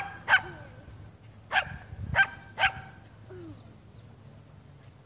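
Small dog barking: five short, sharp barks, two close together at the start and three more in quick succession over the next two seconds or so.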